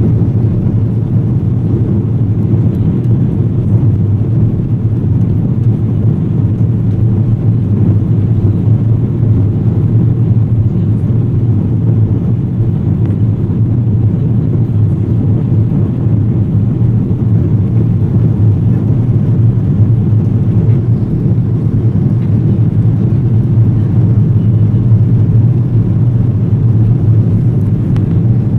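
Airbus A330-200 cabin noise during the climb after takeoff: a steady, loud, low rumble of the jet engines and airflow heard through the fuselage.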